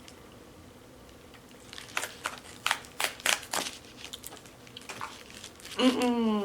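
A run of sharp, short crinkling and crunching crackles from handling and biting into a Burger King Hershey pie, lasting about a second and a half; a woman starts talking near the end.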